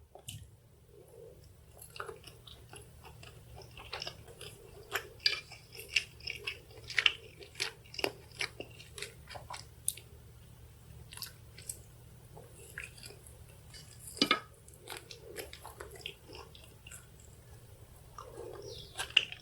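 Close-miked chewing of boneless chicken 65: a dense, irregular string of small mouth clicks and crunches, over a faint steady low hum.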